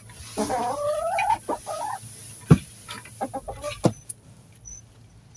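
Hens clucking, with one drawn-out rising call about half a second in, then shorter clucks. A single sharp knock comes about two and a half seconds in, followed by a few lighter clicks.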